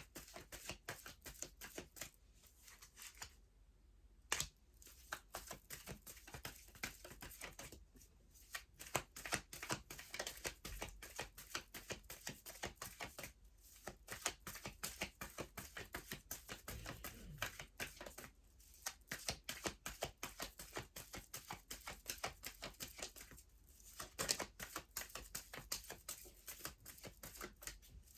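A Wisdom of the Oracle card deck being shuffled by hand: rapid runs of cards clicking and slapping together, broken by short pauses about every five seconds.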